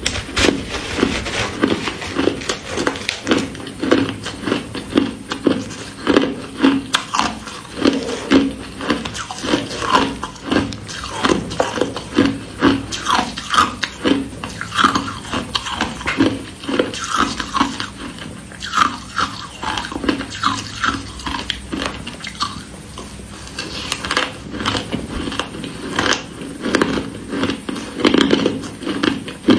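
Crushed ice being bitten and chewed close to the microphone: a continuous run of crisp crunches, a few a second. A metal spoon scoops through the crushed ice near the start.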